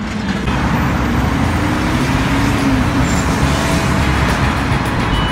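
Heavy highway traffic: a steady rush of cars, buses and trucks, with music over it.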